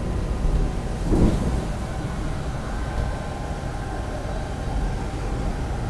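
Steady low running rumble heard inside the cabin of a Taiwan High Speed Rail 700T train travelling at speed, with a short louder sound about a second in.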